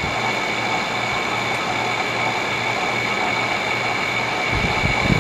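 5,000 BTU Frigidaire window air conditioner running on low cool, a steady hum and blowing noise with a high whine held throughout; the owner puts its noise down to a bad fan motor. A low rumbling comes in near the end.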